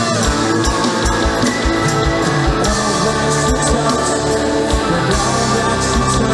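Live rock band playing loud and steady, with held guitar notes over bass and a regular drum beat.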